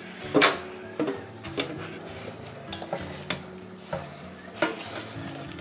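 Hand kneading and mixing soft dough in a stainless steel bowl, a soft squishing broken by irregular knocks of the metal bowl, the loudest about half a second in.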